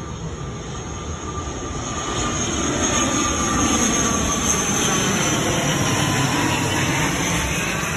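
High-wing twin-engine airliner flying low overhead: a broad engine rumble with a whine on top, growing louder through the first few seconds, and the whine's pitch sliding down as the plane passes.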